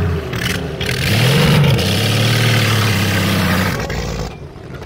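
Rat rod pickup's engine revving hard while spinning on dirt: the engine note climbs about a second in, holds high and steady, then drops off near the end.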